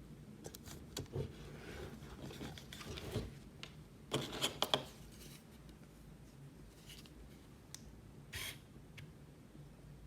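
Light handling noise of a small plastic camera remote and camera: rubbing with a few sharp clicks, the loudest cluster of clicks about four seconds in and one more near the end.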